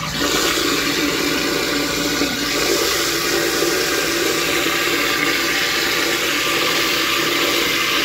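InSinkErator garbage disposal running loud and steady, grinding ice cubes with a thin stream of cold tap water. This is the ice trick on a slow-running disposal: the ice is scouring grease and gunk out of the grinding chamber.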